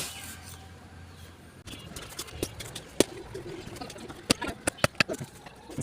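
A series of sharp, irregular knocks, like tool strikes while a tree root is being worked out, coming quicker from about four seconds in. A low hum runs under the first second and a half, then stops.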